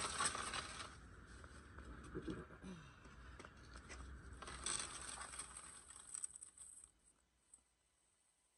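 Plastic oil-drain bucket and cardboard being dragged over a concrete driveway: rustling and scraping in two bouts, one at the start and one about halfway through.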